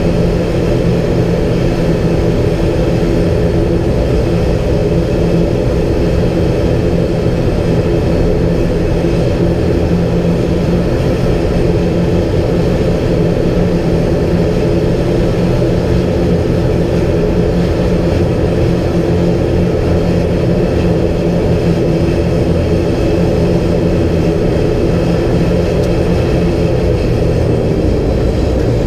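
ATR 72-500's Pratt & Whitney Canada PW127 turboprop engines and propellers running while the aircraft taxis, heard inside the cockpit as a steady, even drone of several low tones.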